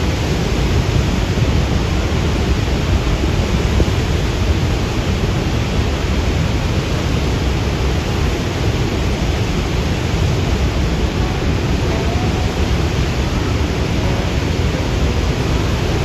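Steady roar of Niagara Falls: a loud, unbroken rush of falling and churning water, deepest at the low end.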